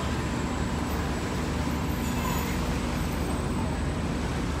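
Star Ferry engine running with a steady low rumble under an even hiss of wind and water.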